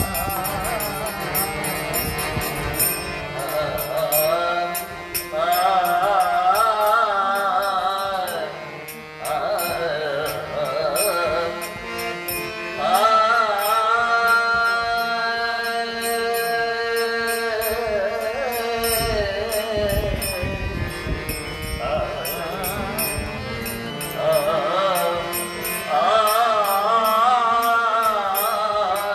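A man singing a devotional kirtan melody with wavering held notes over a harmonium playing steady drones and chords, with a fast, regular high ticking percussion beat underneath. The singing drops out for short spells, about nine seconds in and for a few seconds past the middle, leaving the harmonium.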